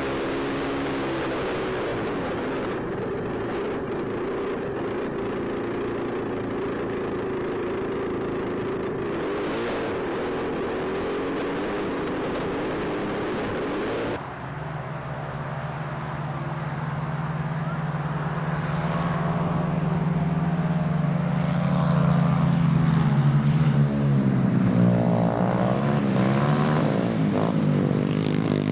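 Racing karts' small engines running. A steady drone for the first half breaks off abruptly about halfway. Then louder, overlapping engine notes rise and fall as several karts race by, getting louder toward the end.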